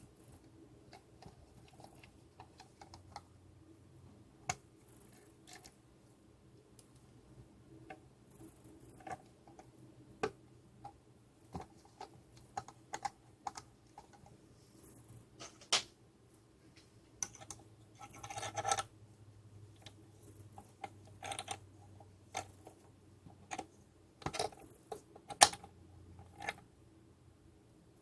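Irregular clicks and taps of the plastic casing parts of a D-Link DAP-1650 range extender being handled and fitted back together, with a short clatter about two-thirds of the way through and one sharper click near the end.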